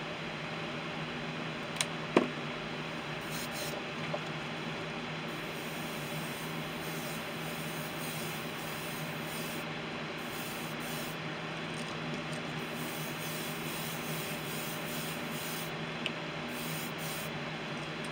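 Iwata airbrush hissing as it dusts paint onto a lure in short passes, the spray starting and stopping several times, over a steady background whir. A sharp click comes about two seconds in.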